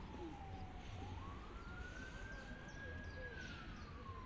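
Wailing emergency-vehicle siren: one tone slowly falls in pitch, climbs back up about a second in, holds, then falls again near the end, over a low rumble.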